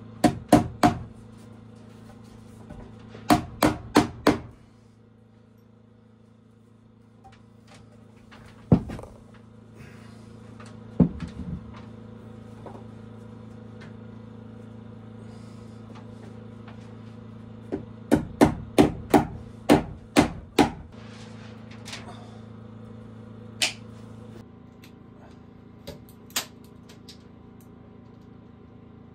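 Hammer blows on wood, coming in quick runs of three to seven strikes with pauses and a few single hits between. A steady low hum runs underneath and drops away about three-quarters of the way through.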